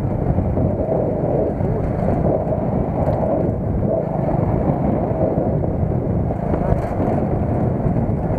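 Steady running noise of a moving vehicle, engine and road rumble, with wind on the microphone.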